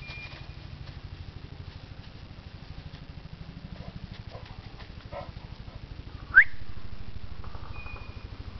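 A single loud, sharp gunshot about six seconds in, trailing off over a couple of seconds, over a steady, evenly pulsing low rumble like an idling engine.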